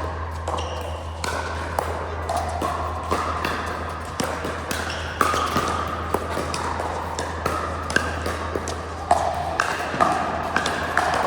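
Pickleball play: paddles hitting the hollow plastic ball and the ball bouncing, making many sharp pops at irregular intervals over a low steady hum.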